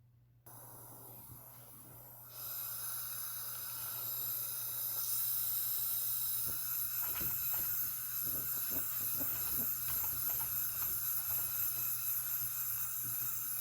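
Gas burner flame hissing steadily as it heats the submersible motor's body so the stator can be fitted. It comes on about half a second in and grows louder about two seconds in, with a few light clicks later on.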